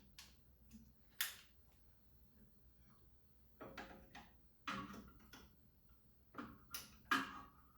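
Metal hand tools clinking and knocking in irregular strokes, the loudest near the end with a short metallic ring.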